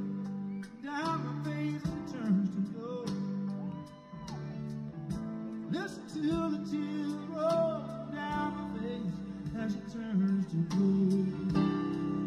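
Background music: a song with singing over acoustic guitar.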